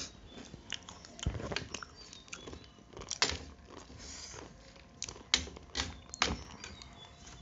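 Close-miked chewing and crunching of food, with several sharp clicks of a metal spoon against a plate.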